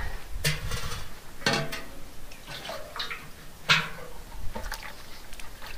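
Water splashing and sloshing in a steel plate as it is rinsed with water from a metal water vessel, in several short separate splashes.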